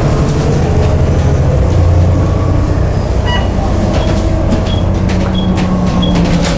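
Volvo B7TL double-decker bus under way, heard from inside: its Volvo D7C diesel engine runs with a steady low drone that rises and falls, over body rattles and knocks. From about four seconds in, a short high tick repeats evenly, about three every two seconds.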